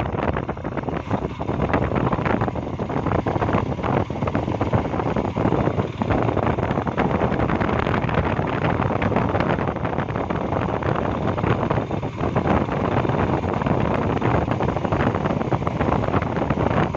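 Motorcycle running on the move, with heavy wind noise buffeting the microphone.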